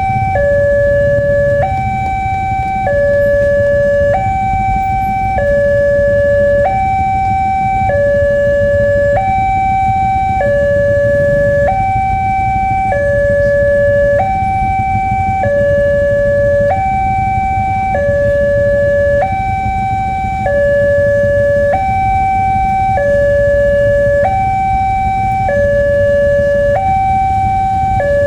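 Electronic level-crossing warning alarm sounding a steady hi-lo two-tone, switching between a lower and a higher pitch about once a second, over a low rumble.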